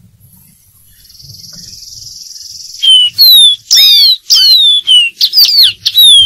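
Dark-throated seedeater singing: after a steady high buzz of about two seconds, a loud run of quick whistled notes, most sliding downward.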